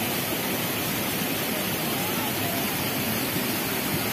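Steady, even rushing of water: rain runoff streaming down a rain-soaked hillside.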